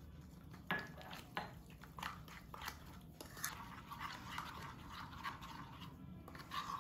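Spoon stirring a thick flour-and-water batter in a bowl: faint, irregular soft clicks and wet scraping as the dry mix is worked into a smooth batter.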